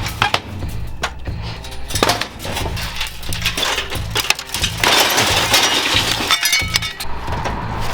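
Skid-steer loader's engine running steadily under repeated cracks, clinks and breaking glass as an appliance is crushed, with a louder stretch of grinding crunching about five seconds in.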